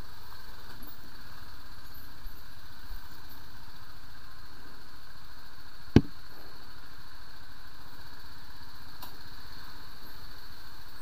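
BMW G 310 GS motorcycle running steadily while riding over a rough dirt track, engine and riding noise at an even level. One sharp knock sounds about halfway through.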